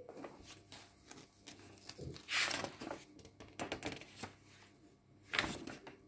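Paper pages of a handmade junk journal being handled and turned, with two soft rustling swishes, one about two seconds in and a shorter one near the end, and a few light paper ticks.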